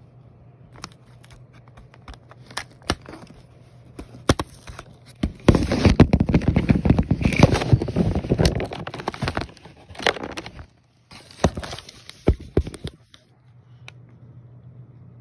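A cardboard chocolate advent calendar being handled as a door is pushed and torn open: scattered clicks and taps, then several seconds of dense crackling and crinkling as the chocolate is worked out, then a few more taps.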